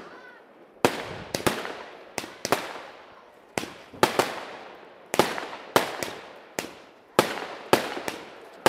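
Weco Bazooka fanned firework battery firing: a string of sharp bangs, about two a second and often in quick pairs, each trailing off in an echo. The bangs begin just under a second in.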